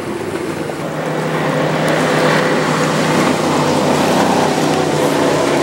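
Jet boat engine running steadily as the boat comes up the river, growing louder over the first couple of seconds and then holding.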